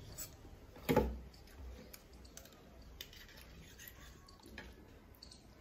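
Close-up eating sounds: soft wet chewing and squishing of rice and curry mixed by hand, with a sharp clack of a steel spoon against a steel bowl about a second in and small clicks after.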